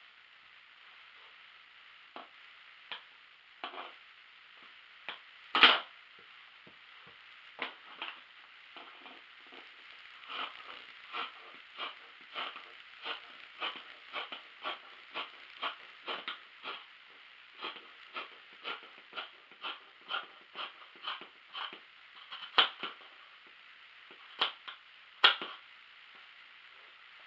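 Large fabric scissors cutting through fabric: a run of short crisp snips, about two a second for much of the time, with a few louder sharp clicks, the loudest about five and a half seconds in.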